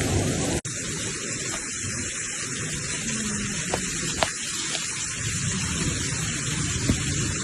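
Rain falling steadily as a constant hiss, with a momentary dropout just over half a second in and a few sharp ticks scattered through it.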